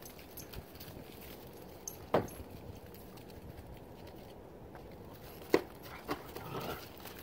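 Puppies at play giving two sharp, short barks, one about two seconds in and another a few seconds later, with a few softer sounds just after the second.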